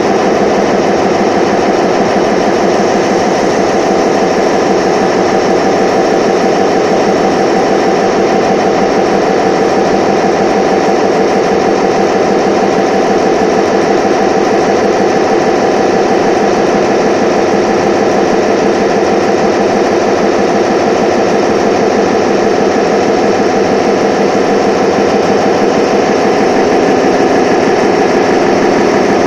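Automatic feed machine for concrete piles running: a loud, steady mechanical drone with a fast, even rattle, unchanging throughout.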